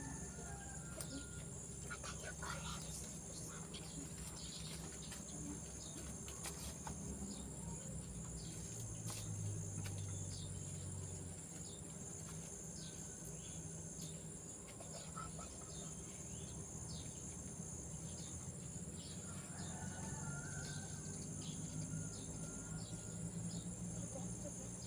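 Outdoor insect chorus: a continuous high-pitched buzz from insects, steady throughout, with many short bird chirps scattered over it and a low background rumble.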